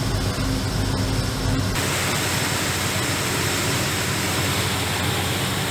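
A riverboat's engine hums steadily under the rush of water along the hull. About two seconds in, the sound cuts to an even rushing hiss of the churning wake, and the engine hum drops away.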